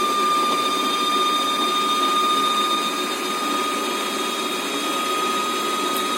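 Usha Janome Stitch Magic sewing machine's motor running steadily under the foot pedal, winding thread onto a plastic bobbin, with a steady high whine.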